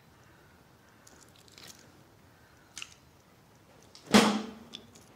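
A man sniffs loudly and sharply through the nose about four seconds in, smelling something held close to his face, and the sniff ends in a brief low hum. A couple of faint small clicks and rustles come before it.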